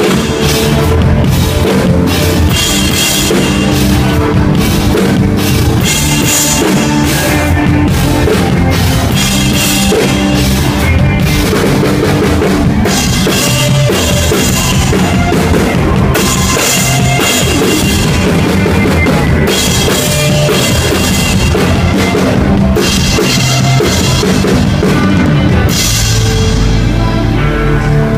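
Rock band playing live: a drum kit with crashing cymbals over electric guitars, bass and keyboard. About 26 seconds in the cymbals and drums drop out, leaving held low notes.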